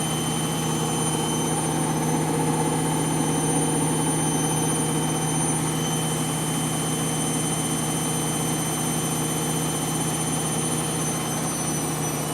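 Candy washing machine spinning its drum at high speed on the final spin: a steady motor hum with a high whine. Near the end the whine starts to drop and the hum cuts out as the spin stops.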